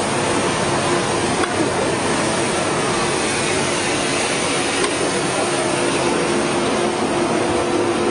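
Steady, even noise of a busy street, with a faint steady hum under it.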